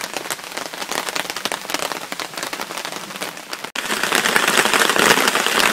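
Light rain falling, with many separate drops ticking. After a cut a little past halfway, the rain becomes denser and louder.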